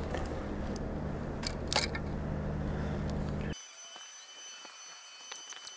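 Footsteps and rustling through brush, with a few sharp snaps, over a steady low hum. About three and a half seconds in it all stops abruptly, leaving near quiet with a few faint clicks.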